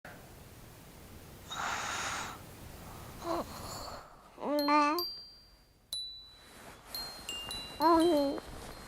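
High chime tones, like a wind chime, struck one at a time from about halfway in, each ringing on. Two short, wavering, voice-like calls stand out as the loudest sounds, one about halfway and one near the end, after a brief burst of hiss near the start.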